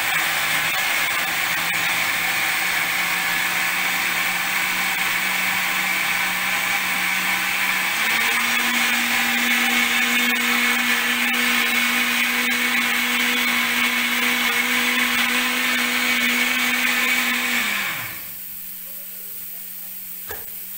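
Electric blender running as it purées tomatoes with water and tomato paste. Its motor pitch steps up about eight seconds in, and near the end it winds down and stops.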